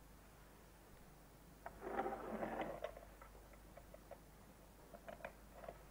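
Handling noise of small objects at a table: a brief rustle about two seconds in, then scattered small clicks and taps.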